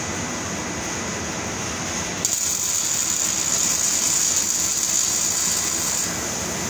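Electric arc welding: the arc strikes about two seconds in, runs with a steady high hiss for about four seconds, then cuts off. Steady machine noise of the shop lies under it throughout.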